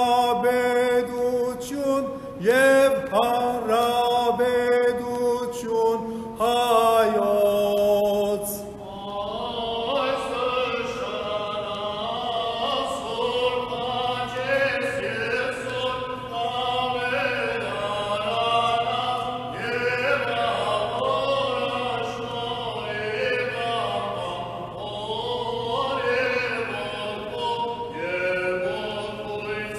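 Armenian liturgical chant: a solo male voice chants loudly close by, then from about a third of the way in, a group of men's voices carries the chant on, quieter and more distant, over a low held note.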